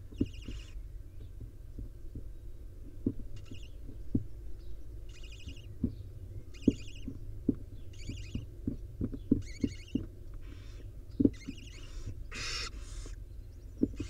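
Barn owls in a wooden nest box giving short raspy calls about once a second, with one louder, harsher call near the end. Soft knocks and bumps from the owls shifting on the box floor sound under a steady low hum.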